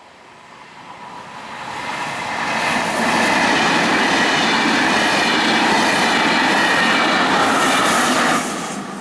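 Regional train of an E 464 electric locomotive and Vivalto double-deck coaches passing over a level crossing. It grows louder as it approaches, runs loud and steady with a high whine over the rush of the wheels, then drops off suddenly near the end as the last vehicle clears.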